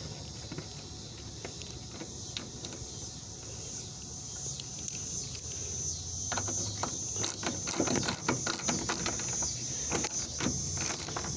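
Steady high chirring of crickets or other insects, with scattered clicks and knocks in the second half from handwork with an 8 mm socket wrench on the taillight's mounting screws.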